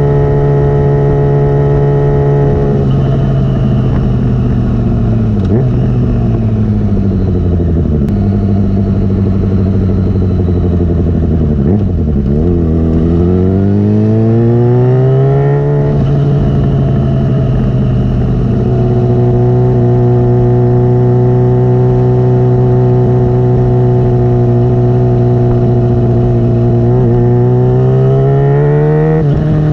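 Yamaha FZ6 inline-four engine through a Dominator aftermarket exhaust, running under way. The note holds steady, drops a few seconds in and winds down slowly as the bike slows, climbs again as it pulls out of a turn about halfway through, settles into a steady cruise, and rises again near the end.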